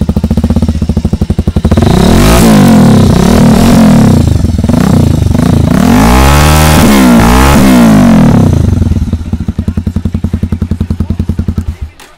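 Bajaj Pulsar 220's single-cylinder engine breathing through an SC Project-style slip-on silencer with its dB killer removed: idling with a loud, open exhaust note, then revved up and back down several times, then settling to idle and shutting off near the end.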